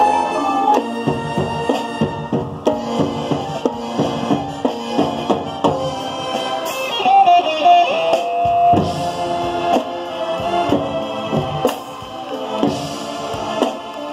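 High school marching band playing, with sustained band notes over frequent drum strikes from the percussion.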